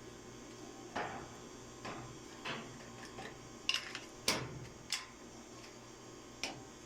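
A series of irregular sharp clicks and light knocks, about eight, the loudest a little over four seconds in, over a low steady hum.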